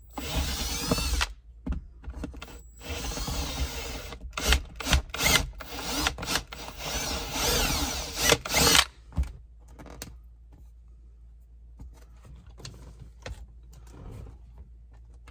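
Power drill enlarging a drilled wire hole to about 3/8 inch, run in several bursts of a second or two with short pauses, the motor's whine rising and falling with the trigger. The drilling stops about nine seconds in, leaving faint handling clicks.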